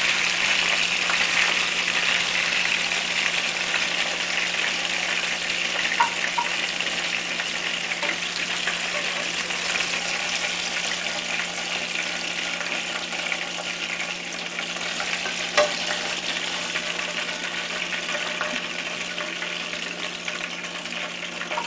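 Chicken pieces frying in hot oil in a frying pan: a steady sizzling hiss that eases slightly over time, with a couple of light knocks of a wooden spoon against the pan, over a steady low hum.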